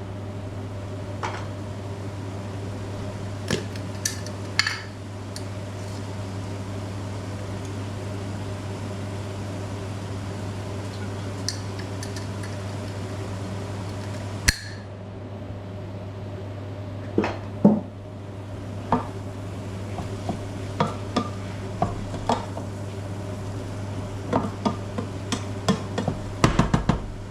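A pot of onions and tomatoes cooking on the stove: a steady hiss over a low hum, with scattered clinks and knocks of a utensil against the pot. About halfway through comes a sharp clink, after which the hiss turns duller, as the lid goes on.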